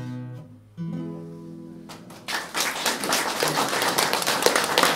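Acoustic guitar's closing chords ringing out at the end of a song, a last chord struck just under a second in. About two seconds in, audience applause breaks out and grows louder.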